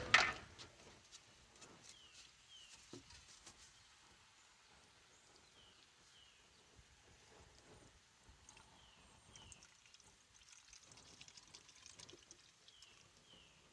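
Antifreeze being poured from a jug into the car's radiator, a faint trickle. In the background a bird repeats a pair of short falling chirps every few seconds.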